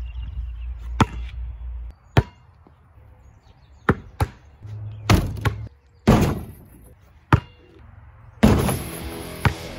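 A basketball striking hard surfaces again and again: about eight separate sharp thuds, spaced roughly a second apart.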